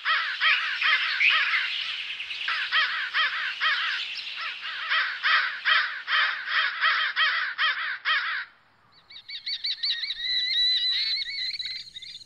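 Crows cawing over and over in quick succession, stopping about eight seconds in. After a short gap, a higher, wavering trill follows.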